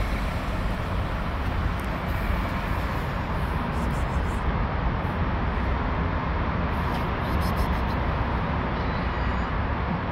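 Steady low rumble of outdoor noise, even throughout, with no meow standing out.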